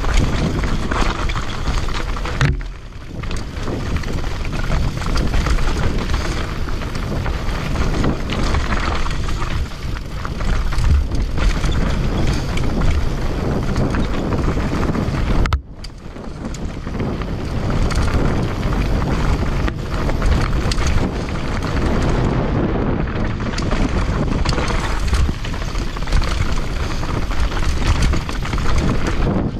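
Commencal mountain bike riding fast down a rough trail: tyres rumbling over dirt and rock, with the bike clattering and rattling and wind buffeting the microphone. The noise drops away briefly twice, about two and a half seconds in and about halfway through.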